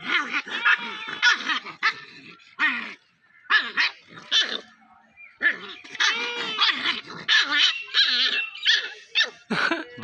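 A puppy barking and yipping in a run of short, high-pitched calls, with brief pauses between them.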